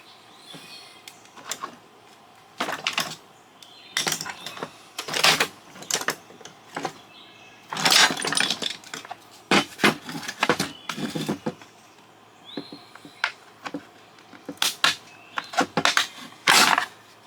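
Irregular clacks, knocks and scrapes of hand tools prying and working at the plastic housing of a satellite LNBF to get it apart.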